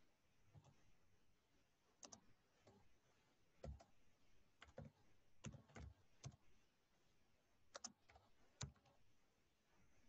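Faint computer keyboard keystrokes: a dozen or so irregular taps as a line of text is typed, several coming in quick pairs.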